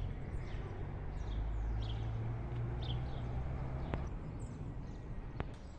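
Low steady rumble of a vehicle rolling over a cobblestone street, with faint scattered bird chirps above it and two sharp ticks near the end.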